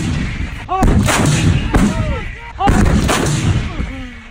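M777 155 mm towed howitzers firing: two sudden blasts about two seconds apart, each trailing off in a low rumble, with excited shouts and whoops between them.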